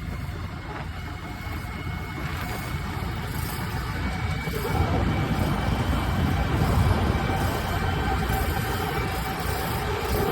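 Preet 987 combine harvester's diesel engine running under way with a dense low rumble that grows louder about halfway through, when a few steady higher tones come in.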